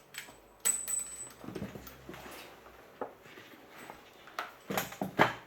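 Clicks and knocks of an air-cocking airsoft rifle's parts being handled and separated during disassembly: a string of sharp taps, the loudest near the end, with quieter handling noise between.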